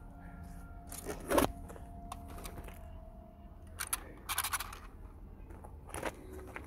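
A few short scraping and rattling noises, the busiest cluster about four seconds in, over a steady low hum.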